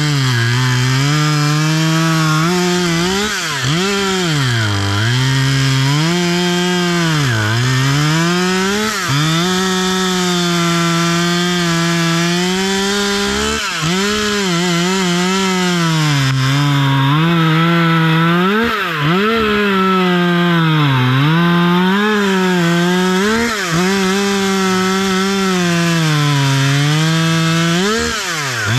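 Husqvarna T540 XP Mark III two-stroke top-handle chainsaw running hard and cutting through small wood about five inches across. The engine note dips and recovers over and over as the chain bites in under load and then frees up.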